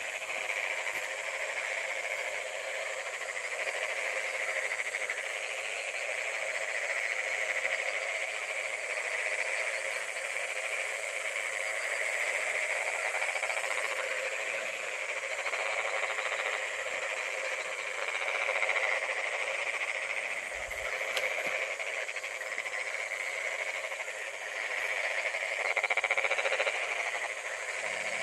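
Night chorus of frogs and insects in a rice paddy: a steady, dense calling with no break, swelling a little louder near the end.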